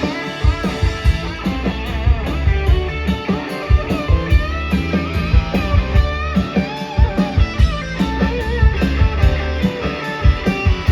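Live rock band playing an instrumental passage with no vocals: electric guitar to the fore, bending notes over a steady drum beat and bass.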